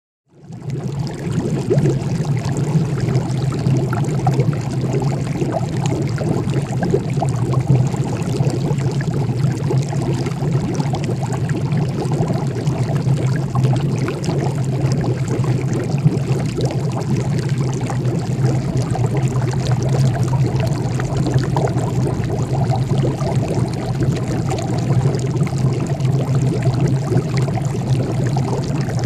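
Liquid bubbling steadily inside a large glass flask: a continuous watery gurgling wash with a steady low hum underneath, starting about half a second in.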